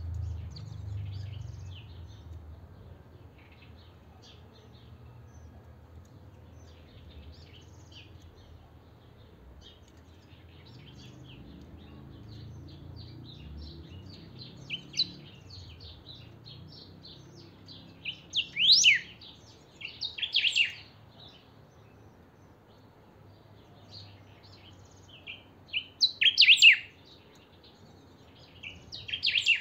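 A caged pica (picahueso) songbird singing: soft, quick twittering throughout, broken by loud bursts of song a little past the middle and again near the end.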